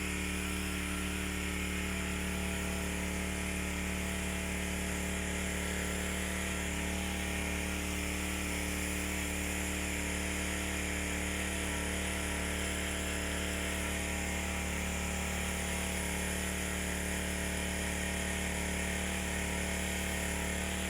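Small engine-driven power sprayer running steadily at an even pitch, pumping anti-termite chemical onto the ground.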